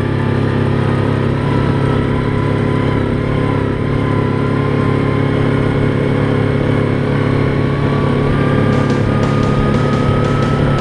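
Yamaha Grizzly 700 ATV's single-cylinder engine running steadily while riding, its pitch creeping slowly upward over the second half.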